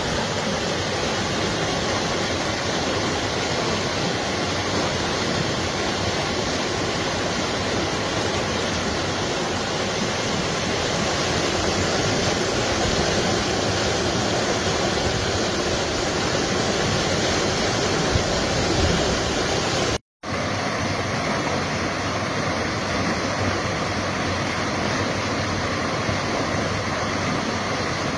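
Fast-flowing river water rushing through a lock, a steady, dense noise. It cuts out for a split second about twenty seconds in.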